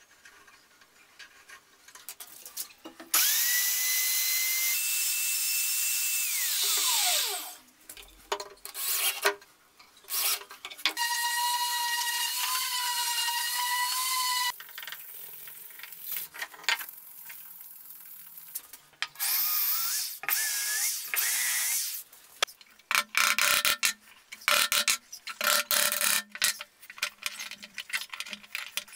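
Woodworking sounds in bursts: light scratching on the wood, then a power tool that spins up, runs with a steady whine and winds down. A handheld electric sander then runs on the wood slice with a steady hum, followed by a quick run of sharp knocks and taps.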